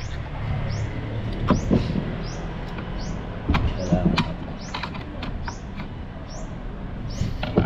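Hand tools clinking and knocking in sharp, scattered strikes while a tight fuel filter is worked loose. A short, high rising chirp repeats about twice a second behind it.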